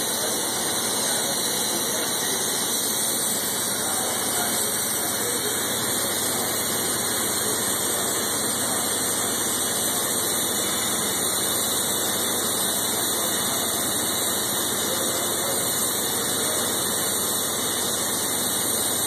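Welding arc burning steadily on 6-inch schedule 20 stainless pipe, an even, unbroken hiss run at high heat.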